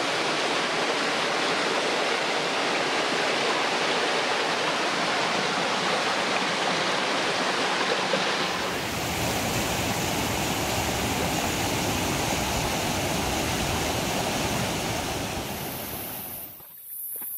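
A rocky forest stream flowing, a loud, steady rush of water. About halfway through it changes to a fuller, deeper rush. Near the end it cuts off abruptly to a much quieter background.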